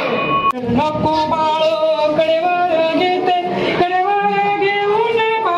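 Devotional song, a voice holding long notes that step up and down in pitch, with an abrupt cut about half a second in after which the singing carries on.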